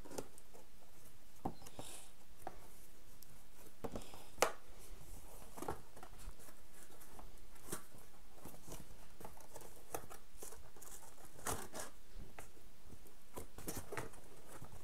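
Packaging being handled: scattered rustles, crinkles and light clicks, with one sharper click about four and a half seconds in.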